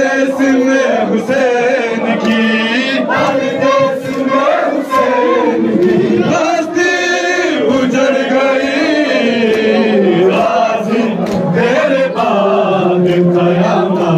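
A crowd of men chanting a Muharram nauha (mourning lament) in unison, following a lead singer on a microphone. Sharp slaps of hands beating chests (matam) are scattered through the chant.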